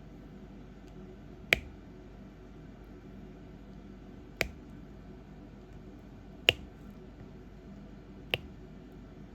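Four sharp single clicks a couple of seconds apart over a faint steady hiss: a diamond painting pen setting resin drills onto the sticky canvas.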